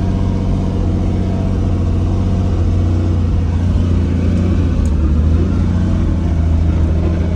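Helicopter engine and rotor running with a steady low rumble, heard from inside the cabin.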